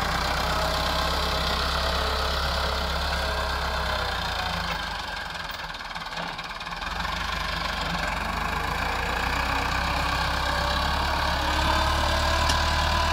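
Massey Ferguson 385 tractor's diesel engine running steadily as it drags a rear back blade through the soil. The engine's low sound drops away for a moment about five seconds in, then comes back.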